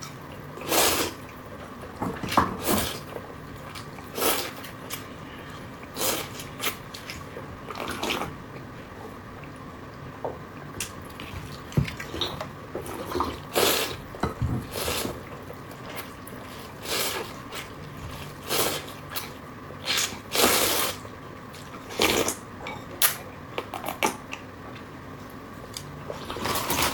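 Wet mouth sounds of someone eating saucy food: slurps and chews in short bursts, roughly one every one to two seconds.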